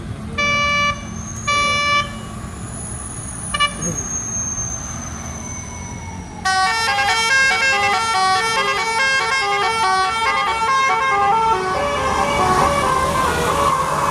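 Indonesian bus telolet-style melody horn: two short blasts of a steady chord and a brief third, then about six seconds in it starts playing a fast melody of changing notes. The bus engine runs underneath.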